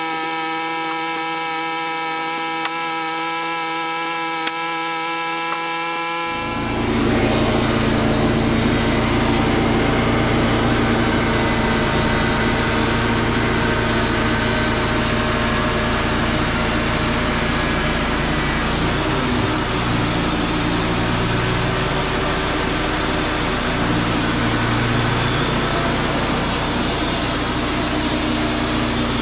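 Sawmill running steadily, then about six seconds in the blade goes into a pine log and a louder, steady cutting noise joins the engine.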